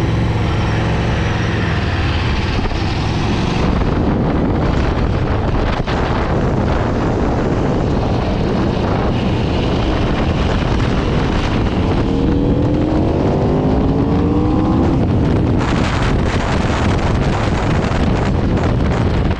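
2018 Aprilia RSV4 RF's V4 engine running at low, steady revs at first, then under way with heavy wind noise on the microphone. About two-thirds of the way through, its pitch rises as the engine revs up, then breaks off.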